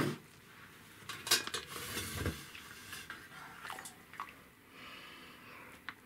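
A few metal clinks and knocks on a stainless steel bush pot as a food pouch is pulled out of its hot water, the sharpest about a second in, followed by softer ticks and water trickling from the pouch back into the pot.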